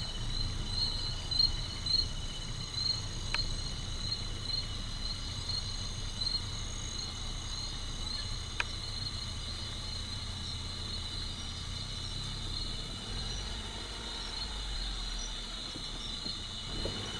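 Night chorus of crickets and other insects, a steady pulsing trill at several high pitches, over the low steady hum of an idling vehicle engine.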